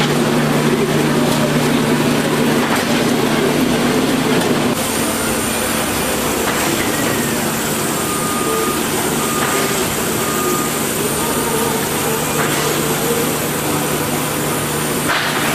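Williames ST1500 rotary drum seeder line running: conveyor and drums clattering steadily over a constant motor hum. A row of short high beeps sounds around the middle.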